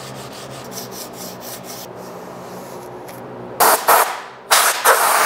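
Sandpaper rubbed by hand in quick back-and-forth strokes over a painted steel part to sand out a paint drip. After a short pause, an aerosol spray-paint can hisses in a few short bursts and then one longer spray.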